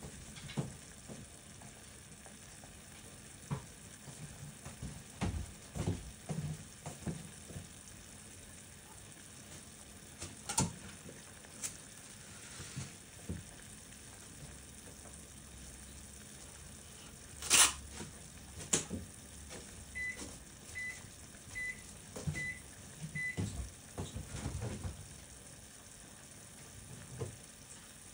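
Pot of carrots and vegetables simmering on a gas stove under a loosely set lid: a faint steady bubbling with scattered pops and knocks, the loudest a sharp clack about 17 seconds in. Five short, evenly spaced electronic beeps sound about 20 seconds in.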